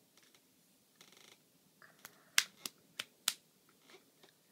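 A brief buzzy rattle about a second in, then a quick run of five sharp clicks over just over a second, the second click the loudest.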